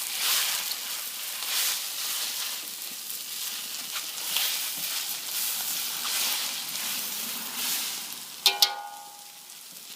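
Rice noodles with bean sprouts and green onions sizzling in a hot wok as they are stir-fried, the sizzle surging every second or so as they are turned. About eight and a half seconds in come two sharp ringing knocks, and the sizzle is quieter after them.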